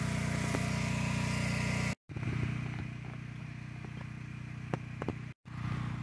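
A small engine running steadily at a constant speed, a low hum with a few faint ticks over it. The hum cuts out for an instant twice.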